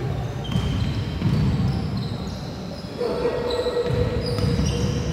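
Live basketball play on a hardwood gym floor: a ball bouncing and sneakers squeaking in short chirps, with the sound of a large sports hall.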